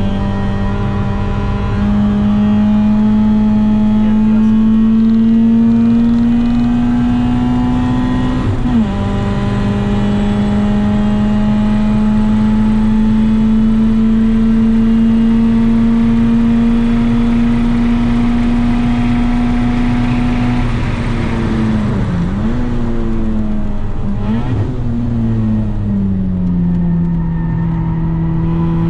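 Small car engine heard from inside the cabin under hard acceleration on a track: the engine note climbs steadily, drops at an upshift about nine seconds in, then climbs again along the straight. About two-thirds through the driver lifts off and the pitch jumps and falls twice in quick downshifts before settling at a lower, steady note.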